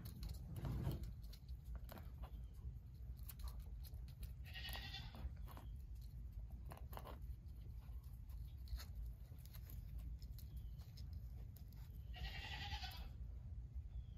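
A skunk scratching and shuffling in sand as it paws and noses an egg, with scattered small clicks and scrapes. Twice, about four and a half seconds in and again near twelve seconds, there is a pitched animal call lasting about a second.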